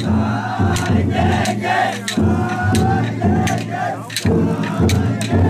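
Crowd of festival float bearers shouting a chant together in short repeated calls as they hold the yatai aloft, with sharp hits scattered throughout.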